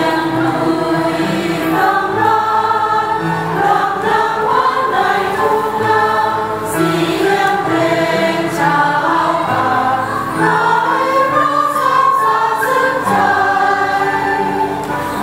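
Church choir singing a hymn with a khlui, a Thai duct flute, playing along into a microphone.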